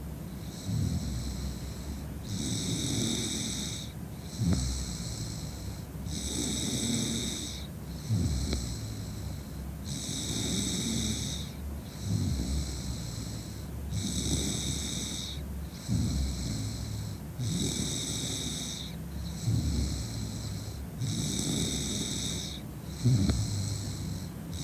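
A woman snoring in a heavy, drunken sleep, with a regular rasping snore and breath repeating every few seconds.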